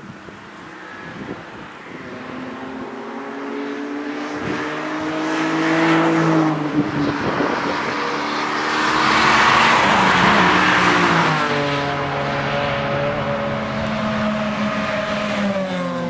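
BMW cars driving past at speed on a race track, engine pitch rising under acceleration and dropping back. The loudest pass, with the most tyre and wind noise, comes about ten seconds in.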